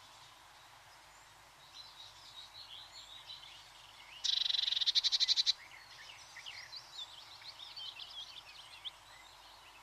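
Wild birds chirping in many short high calls. About midway comes a loud, fast trill lasting just over a second.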